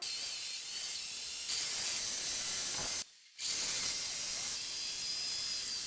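Corded electric drill running with a small bit boring into a vending machine's lock to drill it out: a steady high whine and hiss. It stops for a moment about three seconds in, then runs on.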